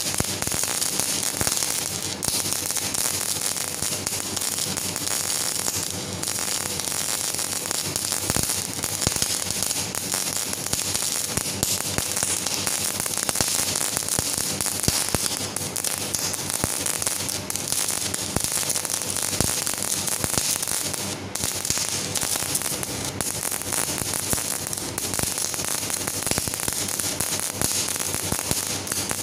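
MAG (CO2-shielded MIG) welding arc burning steadily along a corner joint, a continuous fast crackle with spatter flying off the weld.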